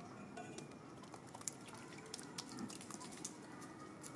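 A young macaque picking at food on pavement and chewing it: faint, scattered small clicks and ticks over a low, steady background.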